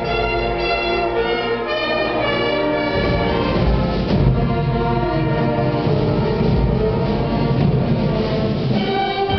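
High school concert band playing a Christmas piece, with brass to the fore on held chords. The lowest instruments are silent for about the first three seconds, then come back in.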